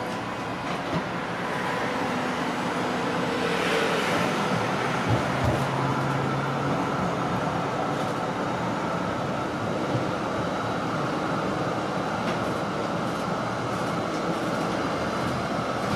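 Z3-class tram running along the street, heard from inside the car: a steady rumble of wheels on rail and motors, with a few sharp knocks from the wheels and running gear and a brief hiss about four seconds in.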